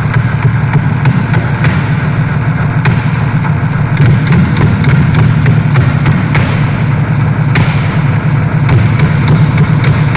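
Loud live electronic music: a dense low drone with irregular clicks and crackles scattered over it.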